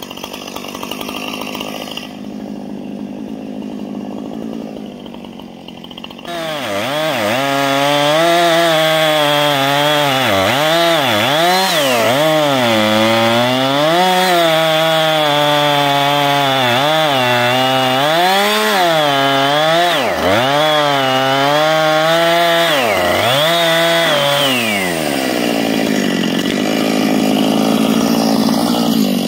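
Gas chainsaw bucking a felled tree trunk into log lengths. It runs quieter for the first few seconds, then cuts at full throttle from about six seconds in, its pitch repeatedly dipping under load and climbing back, and drops back near the end.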